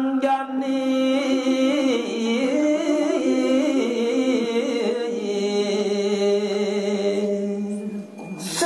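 A voice singing a line of Balinese geguritan poetry in the pupuh style, drawing each syllable out into long held notes with slow, ornamented pitch turns. About halfway through it settles onto a lower held note, and a short hiss cuts in near the end.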